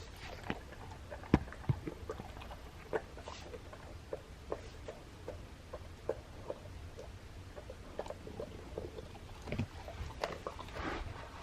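Golden retriever puppy chewing and crunching a jerky treat: a string of small crunches and clicks, about one or two a second, with a sharper knock about a second and a half in.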